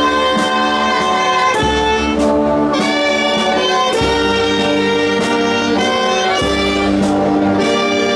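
Procession brass band playing a slow march: sustained brass and saxophone chords, with a bass drum stroke about every two and a half seconds.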